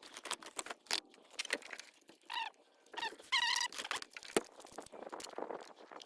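Removing a car headlight assembly by hand: scattered clicks and taps of tools and plastic parts, with a few short squeaks with a wavering pitch near the middle.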